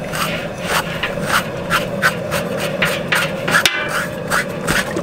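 Hand-held bell hog scraper rasping in quick repeated strokes, about three a second, over a scalded pig's hide, scraping off the softened hair.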